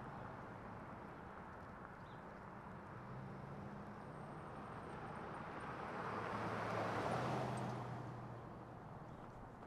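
A car passing by on the street, its engine hum and tyre noise growing to the loudest point about seven seconds in, then fading away.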